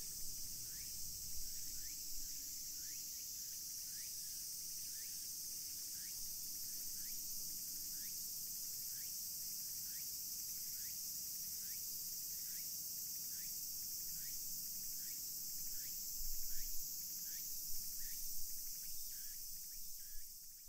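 Forest ambience: a steady, high-pitched insect chorus, with a short rising chirp repeated about every two-thirds of a second throughout. A few low rumbles come in the last few seconds, before it all fades out.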